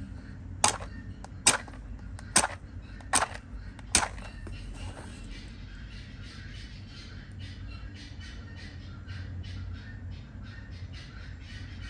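A lighter being flicked five times in quick succession, sharp clicks a little under a second apart, as it is lit to heat the glue for a replacement rod tip.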